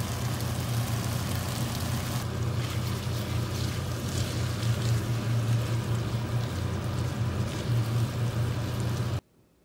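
A pan of ragu sauce and spaghetti cooking on an induction hob: a steady low hum with an even simmering hiss over it. It cuts off suddenly shortly before the end.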